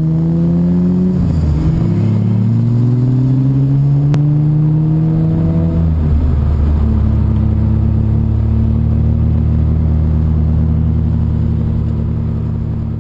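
Car engine heard from inside the cabin, accelerating hard: its pitch climbs, drops at a gear change a little past a second in, climbs again, then settles to a steady cruise from about six seconds in.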